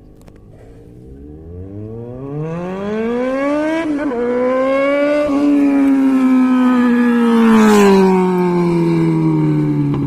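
Yamaha XJ6's inline-four with a straight-through open exhaust, revving loud under acceleration. The pitch climbs from about a second in, dips at gear changes about four and five seconds in, holds, then falls away over the last two seconds.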